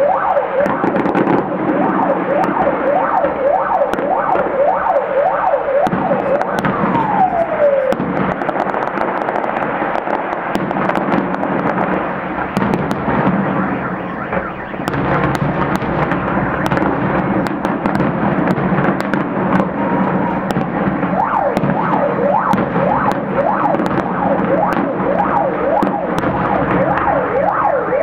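Fireworks display: sharp bangs and crackles over a constant din of warbling, rising-and-falling whistles, with one long falling whistle about seven seconds in.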